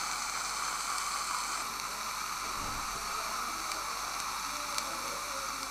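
Steady hiss of a dental saliva ejector's suction in the patient's mouth, with a faint hum under it and one soft low thud about midway.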